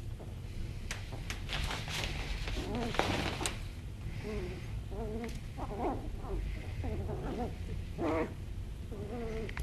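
Two chihuahua puppies play-fighting: scuffling and blanket rustling, then from about five seconds in a string of short, pitched whines and growls.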